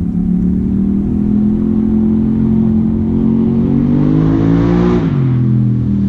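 Polaris Sportsman 850 High Lifter ATV's parallel-twin engine through a Big Gun exhaust, its pitch climbing steadily for about five seconds as it accelerates, then dropping sharply near the end. It runs smoothly on the Big Gun power box's recommended tune.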